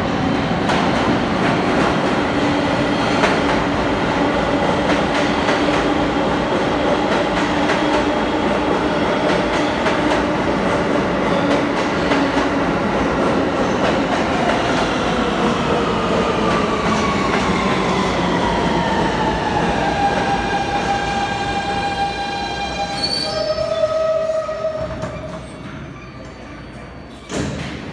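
R160 subway train arriving and braking to a stop, with its wheels rumbling and squealing on the rails. From about halfway through, the whine of its traction motors falls steadily in pitch as it slows, then holds a few steady tones as it stops, followed by a brief burst of noise just before the end.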